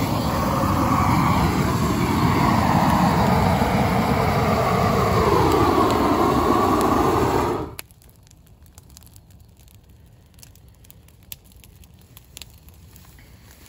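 Propane weed-burner torch roaring steadily, then stopping suddenly a little over halfway through. Faint crackling of burning brush follows.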